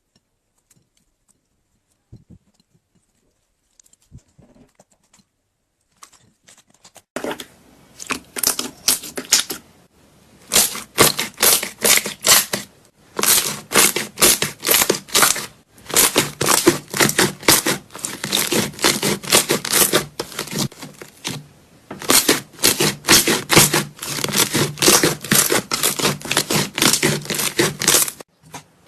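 Slime being squeezed and pressed by hand close to the microphone: dense runs of sticky crackling and popping in bouts, starting about seven seconds in after near quiet.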